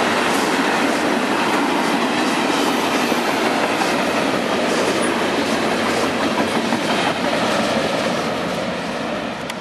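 Freight cars of a passing mixed manifest train (tank cars, boxcars and lumber-loaded centerbeam flatcars) rolling by on steel wheels: a steady, loud rumble of wheels on rail with clickety-clack. It starts to fade near the end.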